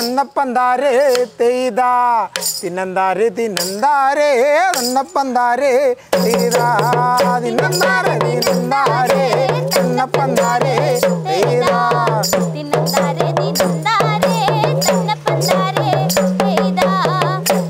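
Kudachozhi folk song: a man sings the lead while beating a small rope-laced drum with a stick in quick strokes. About six seconds in, a group of voices joins in chorus over the drumming.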